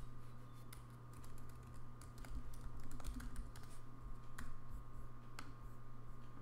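Typing on a computer keyboard: a quick run of key clicks in the first few seconds, then a few single clicks, over a steady low hum.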